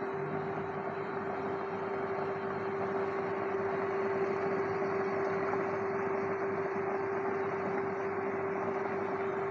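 Induction cooktop running under a large steel pot of water: a steady hum with one constant mid-pitched tone over an even rushing noise.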